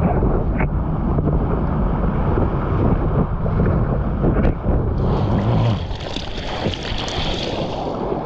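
Surf water rushing and splashing under a longboard riding a breaking wave, with wind buffeting the board-mounted camera's microphone; a hissier spray sound joins in about five seconds in.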